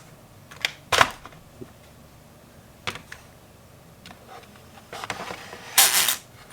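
Scattered sharp clicks and knocks of hard plastic screen-protector installation kit parts being handled and set in place, the loudest about a second in and a short cluster near the end.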